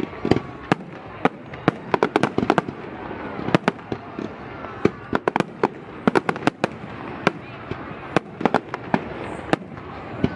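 Fireworks display: a rapid, irregular run of sharp bangs and cracks from exploding shells, several a second.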